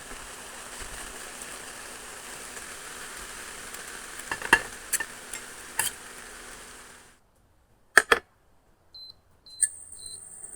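Eggs sizzling in a stainless steel frying pan, with a few sharp metal clinks on the pan between about four and six seconds. The sizzle cuts off after about seven seconds, followed by two sharp clicks and four short, high electronic beeps.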